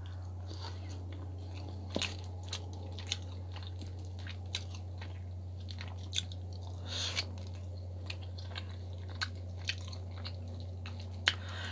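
Close-miked mouth sounds of a person chewing a mouthful of baked salmon: scattered soft wet clicks and smacks. A steady low electrical hum runs underneath.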